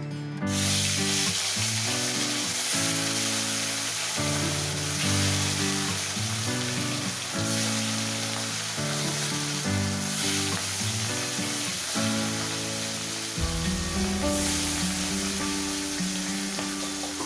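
Food sizzling in hot oil in a pan, a steady hiss that starts suddenly about half a second in, with light background music.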